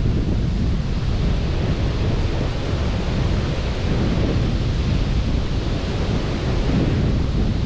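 Steady rush of sea surf and wind, with a constant low rumble and no distinct breaks or strikes.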